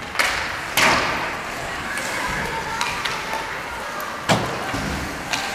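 Sharp knocks and slaps of ice hockey play (puck, sticks and boards): two close together just after the start, then two more about four and five seconds in.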